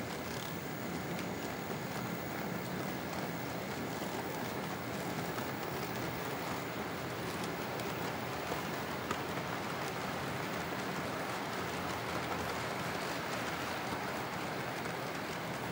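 HO-scale model freight train rolling past: a steady rushing rattle of metal wheels on the track, with a few faint clicks.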